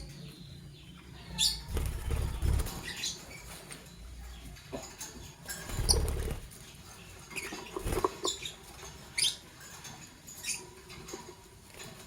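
Lovebirds giving short, high chirps every second or so, among low thumps and fluttering as they move about, the loudest thump about six seconds in.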